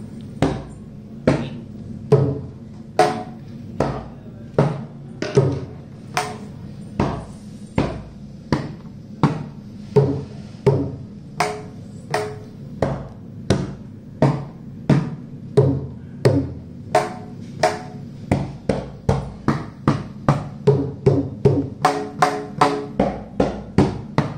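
Mridangam played solo: single hand strokes on its two heads, evenly spaced a little over one a second, some ringing with a clear pitch. These are the basic lesson's strokes (tha, ti, tum, nam) at first speed. About twenty seconds in, the pace roughly doubles as the playing moves to second speed.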